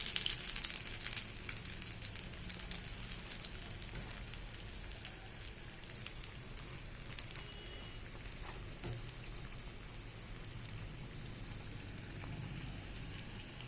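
Batter-coated bread pakoras deep-frying in hot oil: a steady sizzle full of small crackles, loudest in the first second or two.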